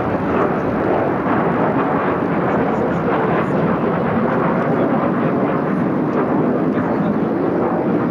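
Jet aircraft flying a display overhead, heard from the ground as a steady rush of engine noise.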